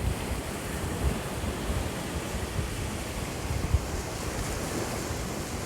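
Ocean surf washing on a beach, a steady rush, with wind buffeting the phone's microphone in uneven low thumps, the sharpest about a second in and just before four seconds.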